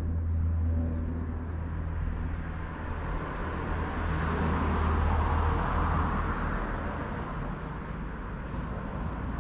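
A road vehicle passing, its noise swelling to a peak about five seconds in and then fading, over a steady low engine hum.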